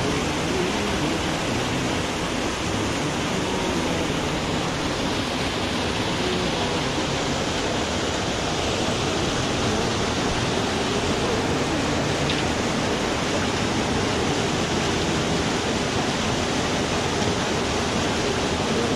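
Steady rush of water pouring out of a concrete drainage culvert and splashing into the pool below.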